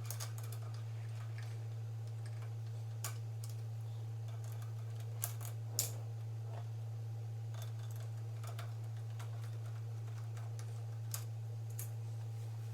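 Scattered light clicks and taps of metal parts and hand tools as a bolt is started into a carburetor mount, two of them louder about five and six seconds in, over a steady low hum.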